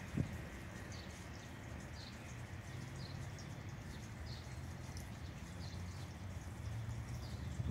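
Covered hopper cars of a freight train rolling past on the rails: a steady low rumble of wheels, with a single knock just after the start and another near the end. A faint high chirp repeats about once a second.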